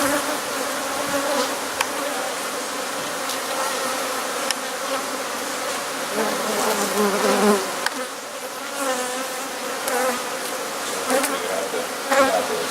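A colony of honeybees buzzing all around as their nest is opened and the brood combs are taken out: a dense, steady swarm buzz with many wavering tones.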